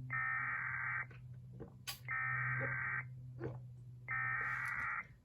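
Emergency Alert System SAME header data tones for a severe thunderstorm warning: three buzzy bursts, each about a second long with about a second's pause between. They come through a radio with a steady low hum and faint crackles underneath.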